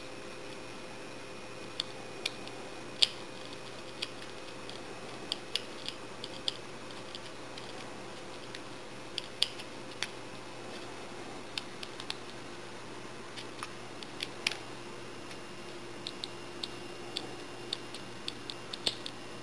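Irregular sharp clicks and ticks of small plastic parts and a screwdriver as screws fasten a hub to a small plastic toy-car wheel, over a steady faint hum.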